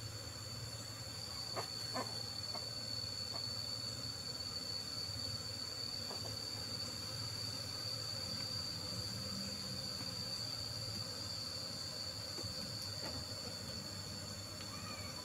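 A steady, high-pitched insect song, with a faint low hum of honeybees under it. A few soft knocks come in the first six seconds.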